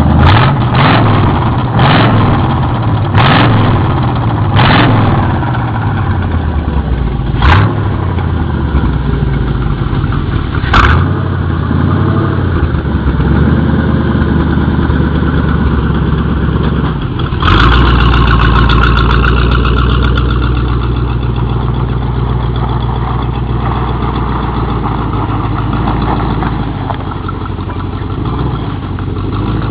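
1978 Chevy Camaro's engine idling with a run of quick throttle blips in the first ten seconds or so. About two-thirds of the way through it is held at higher revs for a few seconds, then settles back to idle.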